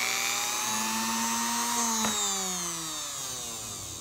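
Small sewing machine motor, its brush leads swapped so that it now turns clockwise, running at speed with a whine. About two seconds in there is a click, and the whine falls in pitch and fades as the motor spins down.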